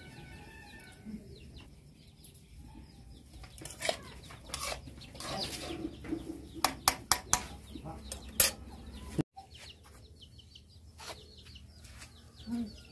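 Metal ladle stirring curry in a metal kadai, scraping and knocking against the pan. From about four seconds in there is a run of sharp clinks, the loudest about eight seconds in.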